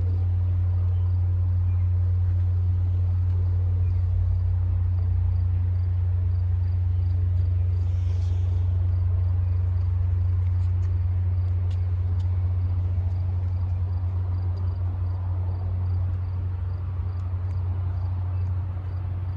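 Steady low drone of a diesel train locomotive's engine running, easing slightly near the end.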